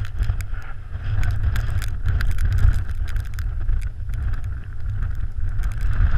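Strong wind buffeting the camera's microphone on an open beach: a deep, uneven rumble, with scattered sharp clicks and a hiss over it.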